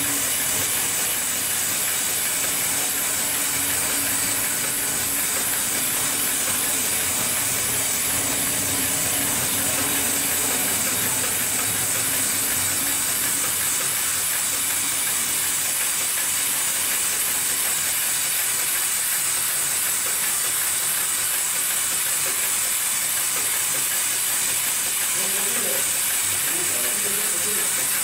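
Automatic industrial sewing machine running continuously as it stitches through a thick stack of cotton buffing-wheel cloth: a steady, even running noise with a strong hiss.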